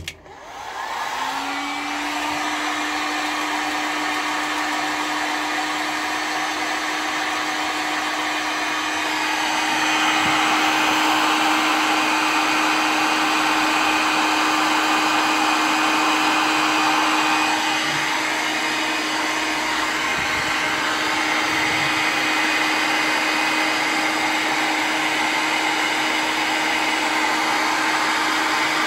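Electric heat gun switched on, its fan spinning up with a rising hum over the first second or two, then running steadily with a constant hum and rushing air. It grows louder for several seconds around the middle. It is heating a lead jig head for plastic powder coating.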